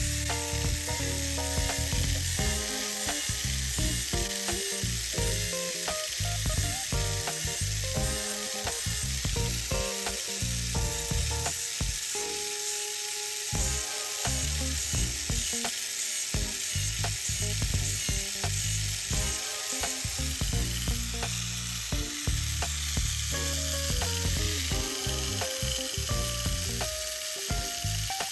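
Mini 4WD motor and drivetrain running at speed, a continuous high whirring hiss, over background music.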